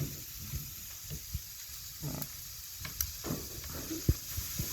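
Faint, irregular clicks and crackles over a steady hiss, from handling the old battery-powered radio while its wax-held wire connection is tested.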